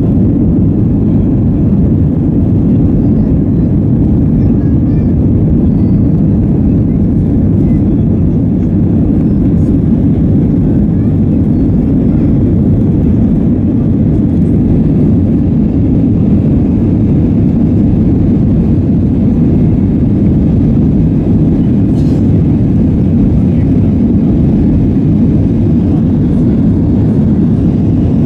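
Steady, loud engine and airflow rumble of an Airbus A321-232, with its IAE V2500 turbofans, heard inside the passenger cabin, unchanging in pitch and level.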